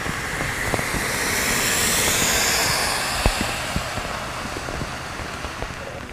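A vehicle's tyres hissing through water on a flooded road as it passes, swelling about two seconds in and slowly fading, with scattered drips of rain.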